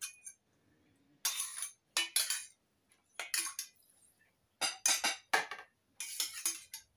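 Metal spoon clinking and scraping against a steel saucepan and a bowl while food is served, in several short bursts about a second apart.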